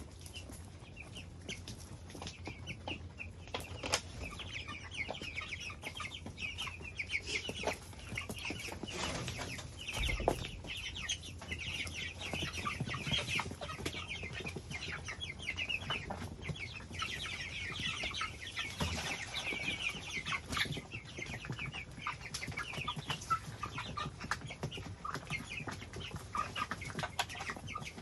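A flock of young white broiler chickens peeping and clucking, many short high calls at once, with rustling in the straw and occasional wing flaps. A steady low hum runs underneath, and there is a single low thump about ten seconds in.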